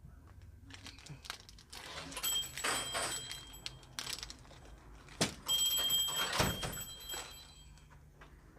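Crinkling and rustling of a foil Pokémon booster pack being handled and torn open, in two stretches about two seconds in and about five seconds in, the second starting with a sharp click.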